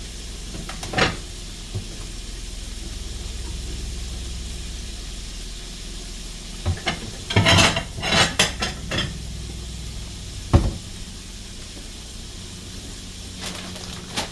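Cooking utensils and pots clattering and knocking in a kitchen, with a burst of rapid clinks midway and a single sharp knock shortly after, over a steady hiss.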